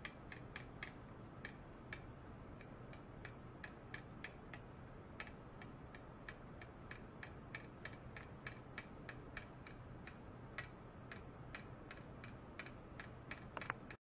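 Faint, irregular small ticks, a few a second, with a brief cluster of them near the end, over a low steady hum.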